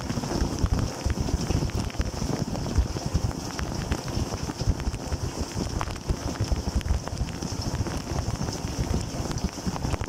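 Dishwasher in its wash cycle, heard from inside the machine through a waterproof camera housing: water jets from the spray arms splash and patter against the racks and the housing in a steady, churning rush.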